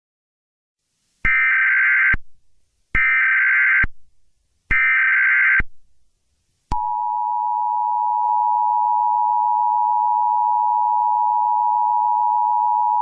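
Emergency Alert System signal: three SAME header data bursts, each a buzzy warble about a second long, starting about a second in. About seven seconds in they are followed by the steady two-tone 853/960 Hz EAS attention tone, which announces an alert message.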